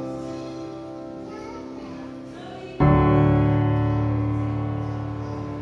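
Background music on piano: slow sustained chords, one fading away, then a new chord struck about three seconds in that slowly dies down.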